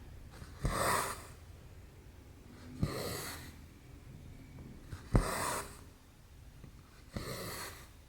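Stitching on cross-stitch canvas, four strokes about two seconds apart. Each is a sharp tick as the needle goes through, then a brief swish as the thread is drawn after it.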